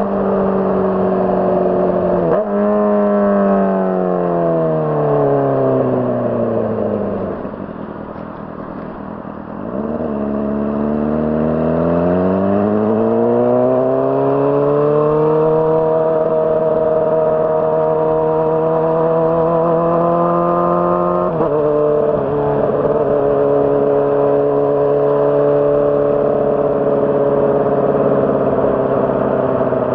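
Honda CBR600RR's inline-four engine under way: its note falls for several seconds as the bike slows, then climbs steadily as it accelerates. About two-thirds through the pitch drops suddenly, as at an upshift, and the engine then runs on at a steady note.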